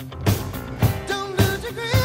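Background music: a pop-rock song with a steady drum beat, about two beats a second, and a sung melody.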